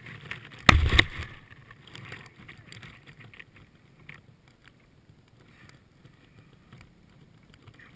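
Two loud knocks a little under a second in, then faint rustling and scratching as grass blades and jumpsuit fabric brush against an action camera lying in the grass.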